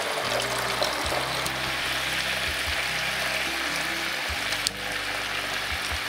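Background music over a steady hiss of chicken frying in a pan, with red wine pouring into a pot.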